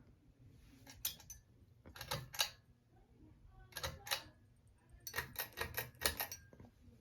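Sharp clicks in irregular clusters of two to six, from a Hunter Westminster ceiling fan that wobbles on a bent blade.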